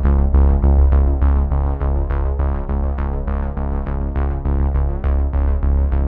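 Electronic background music: synthesizer notes over a heavy steady bass, struck about three times a second.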